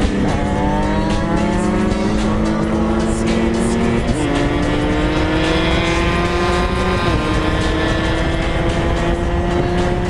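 A 125 cc two-stroke supermoto motorcycle accelerating hard. The engine note climbs steadily through each gear and drops sharply at each upshift: once near the start, again about four seconds in, and again about seven seconds in.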